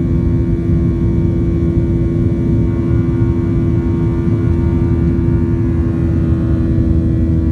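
Cabin noise of a Boeing 737-900ER climbing out after takeoff: its CFM56-7B turbofan engines at climb power make a steady rumbling drone with a few held humming tones, heard from a seat over the wing.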